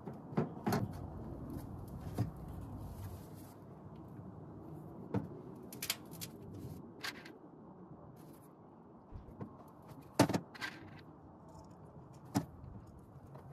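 Scattered small clicks and taps, about a dozen, the loudest pair about ten seconds in, as insulated butt connectors are fitted and crimped onto the ends of a voltage reducer's wires.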